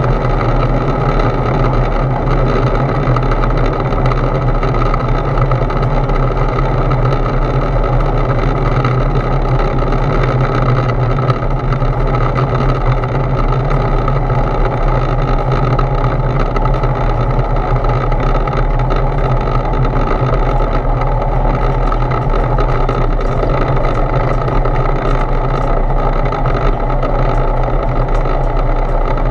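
Foxbat A22LS light aircraft's engine and propeller running steadily at low power while taxiing, heard from inside the cockpit as a loud, even drone.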